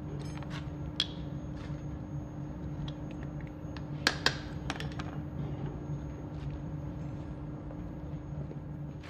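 Workshop room noise with a steady low hum, broken by a few sharp knocks and clinks as a freshly cast iron kettle is taken out of its mold. The loudest are two close together about four seconds in.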